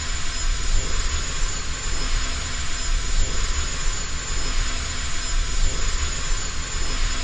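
A steady, loud rumbling roar with hiss and a thin high whine over it, a sound effect.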